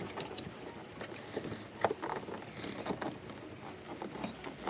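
Headlight dust cover being pushed and twisted back onto the back of the headlight housing by hand: scattered small clicks, scrapes and rustling of handling, with one sharper click about two seconds in.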